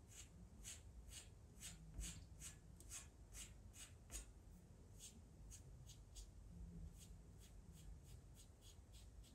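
Faint, short scratchy strokes of a Faber-Castell soft pastel half stick on sanded pastel paper, about two a second, with a brief pause about halfway through.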